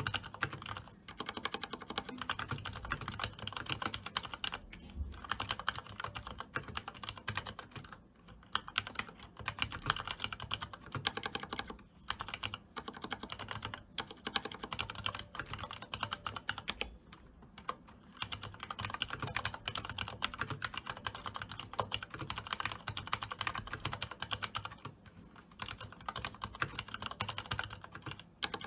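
Steady typing on a Leopold FC660M BT mechanical keyboard with Cherry MX Red linear switches lubed with Super Lube grease spray and PBT double-shot keycaps: a fast run of keystrokes with brief pauses.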